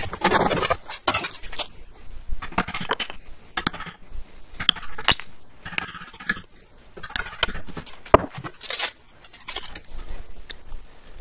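Irregular clinks, knocks and scrapes of objects being handled on a workshop bench, with no power tool running.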